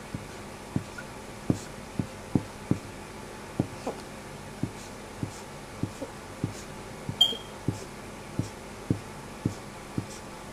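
Dry-erase marker drawing on a whiteboard: a string of short, light taps, about one or two a second, as the strokes go on, with one brief high squeak about seven seconds in.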